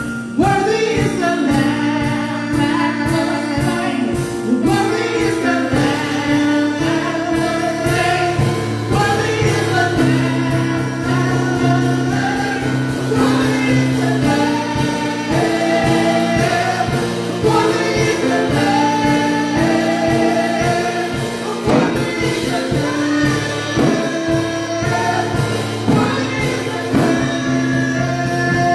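Live gospel worship music: a choir of voices singing over long held chords, with a steady drum beat.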